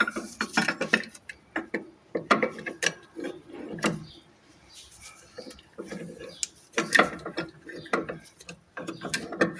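Irregular bursts of mechanical clicking and rattling from hand work on a car's steering rack.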